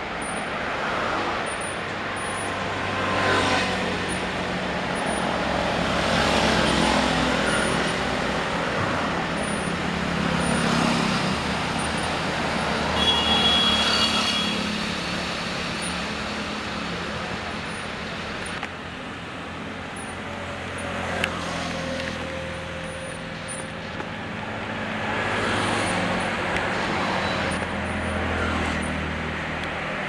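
Steady road traffic, with vehicles swelling past every few seconds and a brief high tone about halfway through.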